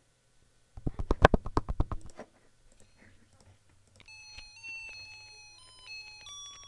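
A quick run of about a dozen sharp taps, then a short electronic tune of steady beeping notes that step up and down in pitch.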